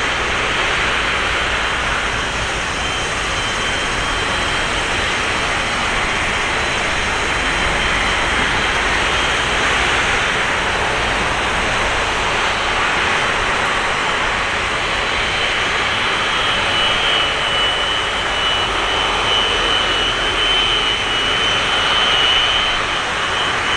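Boeing 737-200's Pratt & Whitney JT8D low-bypass turbofans running with a loud, steady jet roar, a high whine coming through more clearly in the last several seconds.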